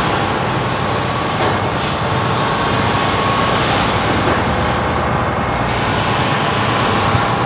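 Steady loud din on board a ferry crossing rough seas: a constant drone with wind and wave noise over it.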